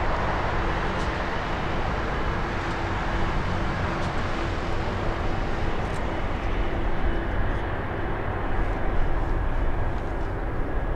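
Jet engines of a Cebu Pacific Airbus A330-300 (Rolls-Royce Trent 700s) running at low taxi power as the airliner taxis past: a steady rushing hum with a low rumble and a faint held tone.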